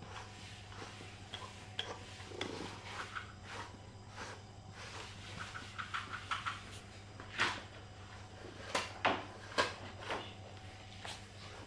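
Scattered light clicks and clinks of small hard objects being handled, with several sharper ones in the second half, over a low steady hum.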